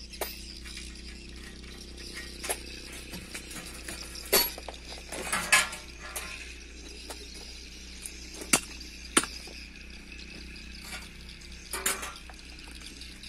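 Metal hand tools and parts clinking and tapping against a car's front wheel hub and steering knuckle during a front wheel bearing replacement: scattered single knocks, with a brief rattle about five seconds in.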